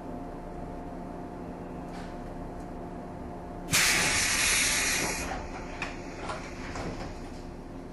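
Steady hum of a JR 115-series electric train's equipment, then about four seconds in a sudden loud hiss of compressed air that fades out over about a second and a half, followed by a few light knocks.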